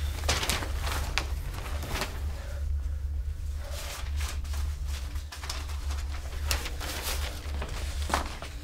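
Sheets of paper rustling and being handled in short irregular bursts, over a steady low hum.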